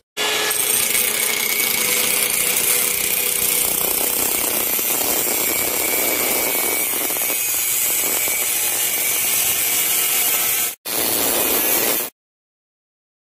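Angle grinder with a thin cutting disc running steadily while cutting through a buried copper water pipe to remove the leaking section. It stops for a moment near the end, starts again, then cuts off abruptly.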